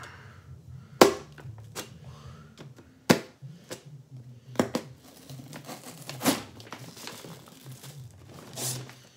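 A knife stabbing and cutting into the packing tape and cardboard of a shipping box: about five sharp jabs, with scraping and crinkling of the cardboard and tape between them.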